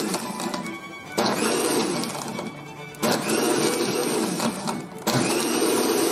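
Countertop blender with a glass jar puréeing a thick avocado smoothie. The motor is switched on in pulses about every two seconds, each one starting suddenly with a whine that rises and then winds down.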